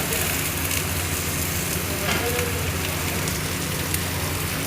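Hot oil sizzling in a pan, a steady hiss with a few faint pops, over a steady low hum.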